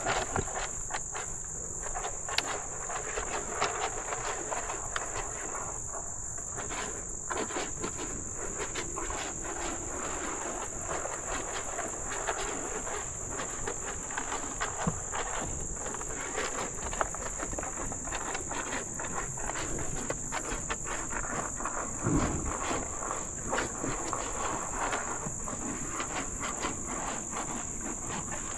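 A steady, high-pitched insect chorus runs under scattered clicks and rustles, with one heavier thump about three quarters of the way through.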